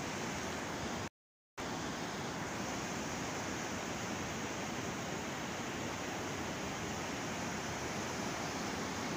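Kunhar River in full flood: a fast, muddy torrent rushing over boulders, a steady rush of water. The sound cuts out completely for about half a second, about a second in.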